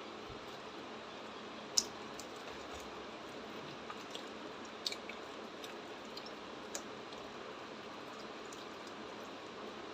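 Slime being squished and mixed, with a few sharp wet clicks over a steady hiss.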